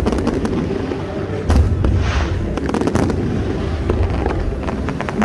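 Aerial fireworks bursting: a dense run of sharp bangs and crackles over a low rumble, with a deep boom about a second and a half in followed by a hissing crackle.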